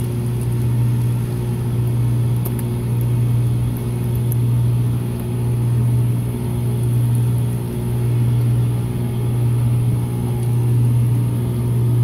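Armstrong Air heat pump package unit running in defrost mode, with its outdoor fan off: a steady low electrical-mechanical hum that swells and eases slowly.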